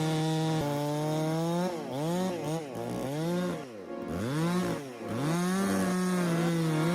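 Two-stroke chainsaw running at high revs, its engine pitch dipping and recovering several times in the middle as it works through wood, then holding steady again.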